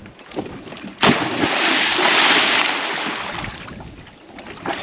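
A person jumping into a lake: a sudden splash about a second in, then a long rush of splashing, churning water that swells and dies away over about three seconds.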